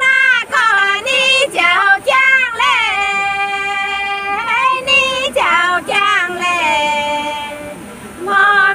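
Women singing a Guangxi shan'ge (folk mountain song) unaccompanied, in one melodic line with long held, drawn-out notes; the line pauses briefly near the end and then starts again.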